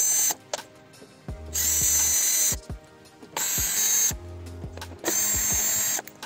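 Electronic background music with a steady beat: deep bass notes and kick-drum thumps alternating with bright hissing swells about every two seconds.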